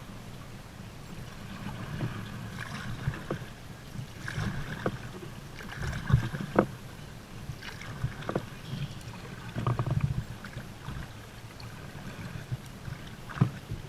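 Kayak paddling: the paddle blades splash into the water every couple of seconds, with a few sharp knocks in between.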